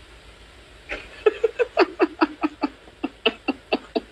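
A person laughing hard in short, rapid bursts, about five a second, in two runs with a brief break midway.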